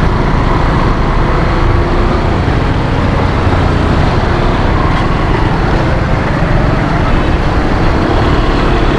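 Motorcycle running as it rides along a wet street, a steady mix of engine and road noise.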